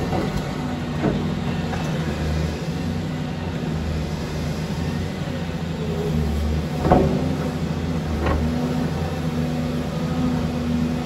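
Caterpillar 330D2 excavator's diesel engine running steadily under digging load, with a few short knocks as the bucket works the dirt; the sharpest knock comes about seven seconds in.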